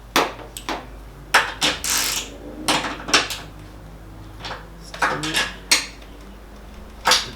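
Irregular metallic clinks and clicks of a hand tool working the bolts of an aluminium roof rack as its fasteners are checked for tightness. There are about a dozen short, sharp strikes, unevenly spaced.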